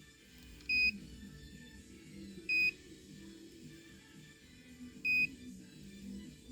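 Three short, high electronic beeps, each a single steady tone, spaced about two to two and a half seconds apart. Quiet background music plays under them.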